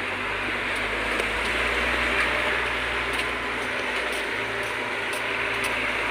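Heavy diesel truck engine running steadily at a low, even speed.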